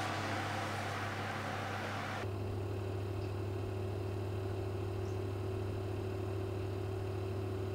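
Steady hum of a running electric oven. About two seconds in, a hissier background cuts off, leaving a low hum with a steady higher tone.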